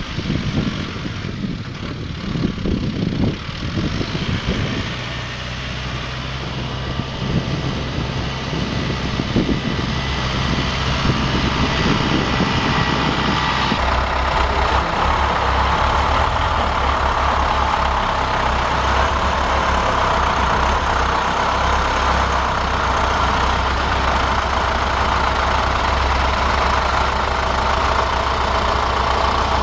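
Tractor engine running steadily. About halfway through, its low hum strengthens and a dense, higher mechanical whirr joins in.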